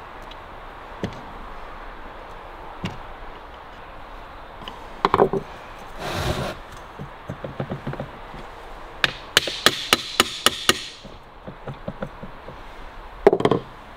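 Hand-tool work on a Harley-Davidson WLA gearbox casing as its nuts are tightened: scattered metal knocks, and a quick run of sharp metallic clicks between about nine and eleven seconds in.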